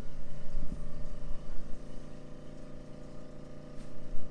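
A steady low mechanical hum, with low rumbling that is louder in the first second and a half and then eases.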